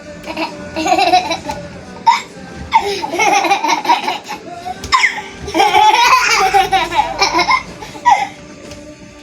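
Small children laughing and squealing in repeated loud bouts.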